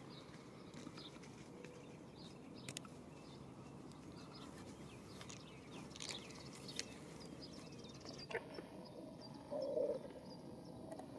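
Faint outdoor ambience with scattered short, high chirps of wild birds. A brief, louder, lower-pitched sound comes near the end.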